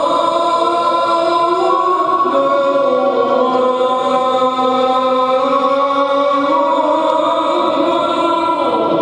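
A muezzin's voice chanting the fajr (dawn) adhan, the Islamic call to prayer: one long drawn-out phrase, the voice stepping between notes, ending near the end.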